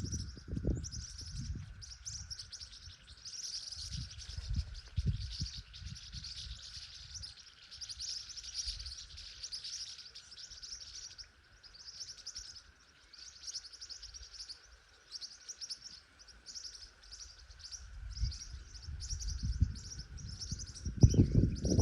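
Birds chirping rapidly and without pause over a steady high hum, with low rumbles coming and going that grow loud near the end.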